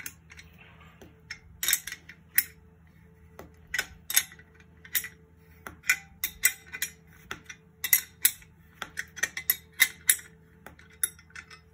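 Metal tools clinking against a steel bracket and its bolts while the bolts are loosened with a hex key and wrench: a string of irregular sharp clicks and taps.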